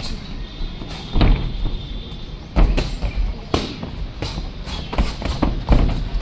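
Boxing gloves landing punches in a sparring bout, a string of sharp, irregular thuds roughly every half second to second.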